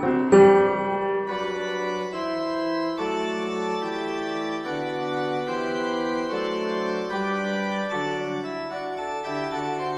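Background music: an organ-like keyboard playing sustained chords that change about once a second.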